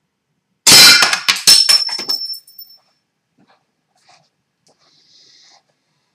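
An 80 lb pistol crossbow shot and its bolt striking an LCD monitor: a sudden loud crack and hit, then a second hit about a second later, with clattering and a high metallic ring dying away over about two seconds. The bolt does not penetrate the monitor; it glances off and breaks apart.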